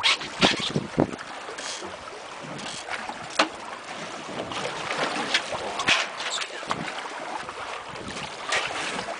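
Wind on the microphone and sea against a small fishing boat's hull, with scattered sharp splashes and knocks as a tope shark is landed alongside.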